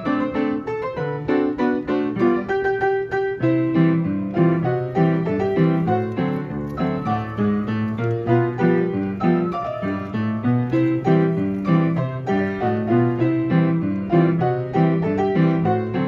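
Player piano playing a perforated paper roll of a march and two-step: a continuous run of bass notes and chords in a steady, regular rhythm.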